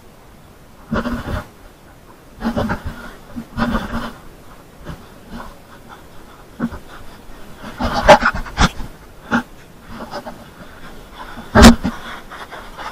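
A hiker's footsteps crunching on loose gravel and rock on a steep trail, in irregular steps with heavy breathing between them; the loudest steps come about eight seconds in and near the end.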